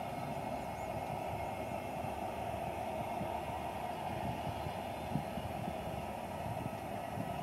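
Distant jet engines of a Cambodia Angkor Air Airbus A321 running steadily as it rolls slowly along the runway: a constant hum over an uneven low rumble.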